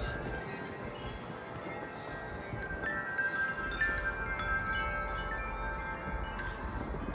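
Several tubular wind chimes ringing in gusty wind, many overlapping tones struck again and again, building about three seconds in. Low wind rumble underneath.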